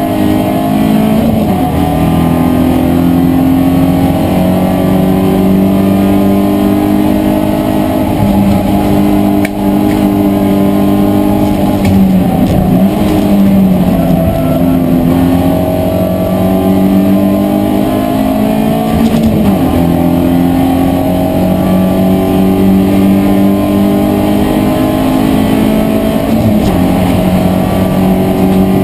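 In-cabin sound of a BMW E36 318iS race car's four-cylinder engine running hard at high revs. A few times its pitch drops and then climbs again as the car brakes, changes gear and accelerates through corners.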